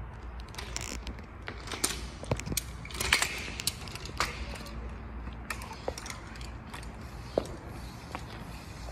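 Scooter rolling over a smooth hard floor: a steady low rumble with irregular clicks, creaks and rattles from the scooter's parts, busiest in the first half.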